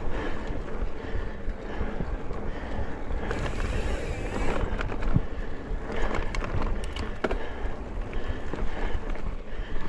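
Mountain bike riding over dirt singletrack: wind rushing on the microphone and tyres rolling on the trail, with the bike rattling and a few sharp clicks and knocks in the second half.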